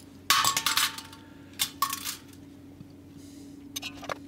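Small metal parts clinking and clattering onto a stainless steel workbench, each hit ringing briefly. A quick flurry of clinks comes about a third of a second in and a couple more near two seconds, then a few light ticks near the end, over a faint steady hum.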